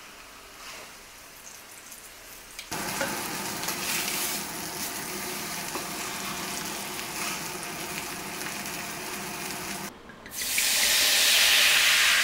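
Beef shanks sizzling steadily as they sear in a stainless steel frying pan, the sizzle starting suddenly a few seconds in. Near the end, wine is poured into the hot pan to deglaze it, and a louder hissing sizzle follows.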